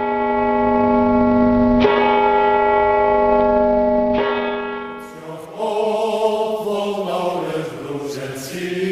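Music: deep bell tones struck about every two and a half seconds, each ringing on, then giving way about five seconds in to a wavering choir-like pad.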